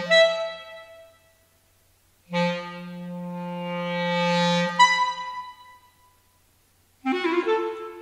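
Solo clarinet: a long low note swells and leaps to a higher note that fades away. After a pause the gesture is repeated, and after another pause a quick flurry of notes begins near the end.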